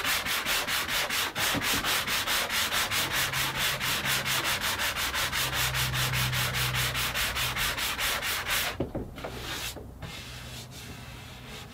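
Hand sanding with a 220-grit sanding sponge over dried wood-filler patches on a painted hollow core door: quick, even back-and-forth strokes, several a second, stopping about nine seconds in.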